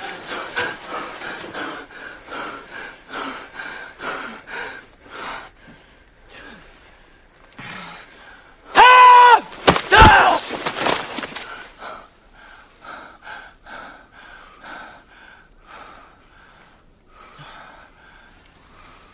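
Men panting and gasping hard in short repeated breaths. About nine seconds in there is a loud drawn-out yell, then a heavy thud with a second cry, and the panting goes on more faintly.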